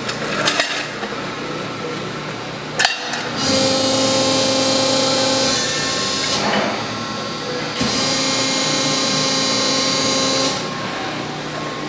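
Hydraulic pump of a 1999 Cincinnati 60-ton CNC press brake running with a steady hum. Twice it swells to a louder whine for two to three seconds at a time, about three seconds in and again near eight seconds, as the ram is driven. A couple of sharp clicks come in the first three seconds.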